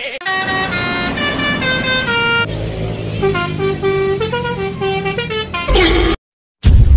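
Basuri 'telolet' musical bus horn playing a tune of short stepped notes, a second phrase sounding over a low engine rumble. It cuts off suddenly near the end, and a loud low rumble follows.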